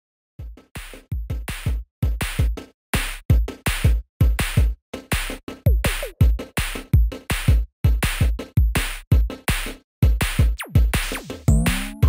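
Electronic background music built on a drum-machine beat, with deep kick hits that drop in pitch, coming in stop-start phrases broken by short gaps. Near the end, a sliding synth sweep leads into held chords.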